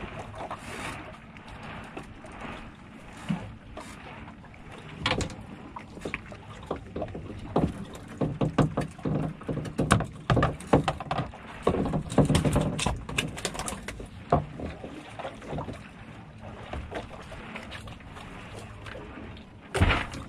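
Small fishing boat drifting at sea, water slapping and lapping against the hull. Scattered knocks and clicks are heard, thickest in the middle, with a sharp knock near the end.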